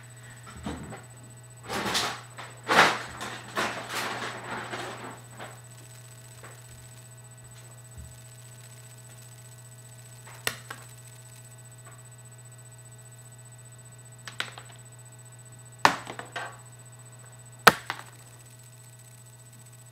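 A Bouvier des Flandres dog crunching hard treats: a run of crunches from about two to five seconds in, then a few single sharp crunches later on. A steady low electrical hum sits underneath.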